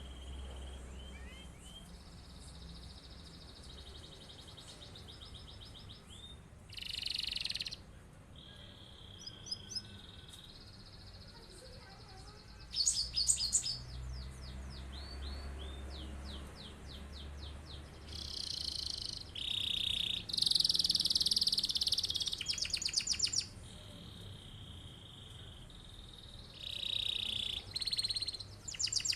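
Domestic canary singing a long, varied song of high trills, rolls and held notes, with loud, rapid trilling phrases about halfway through and again about two-thirds through.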